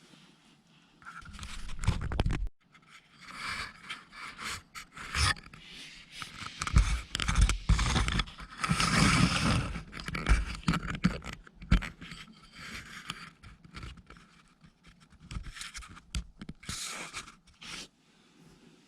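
Irregular scraping and rustling with scattered clicks and knocks, heaviest about a second in and again in the middle, then easing off.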